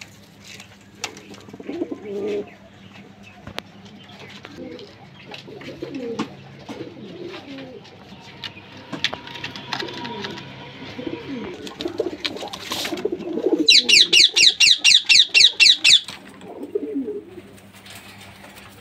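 Fancy pigeons cooing, low warbling coos repeating again and again. About two-thirds of the way in, a loud, fast series of high chirps from another bird runs for about two seconds, roughly nine notes a second.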